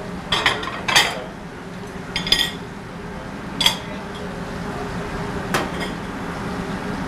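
Metal cookware and utensils clinking at a gas range, about six sharp clinks, most in the first four seconds, over a steady low hum.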